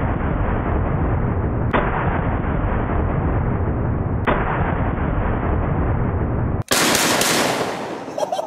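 Slowed-down blasts from a Chiappa Triple Threat triple-barrel 12-gauge shotgun: three deep, drawn-out booms about two and a half seconds apart, each rumbling on until the next. Near the end comes a sharper, fuller burst of noise that fades over about a second.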